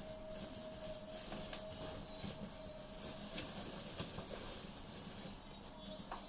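Australian Shepherd puppies scampering and playing on a hard floor, with scattered light taps and clicks of paws and claws. A faint steady hum stops about three seconds in.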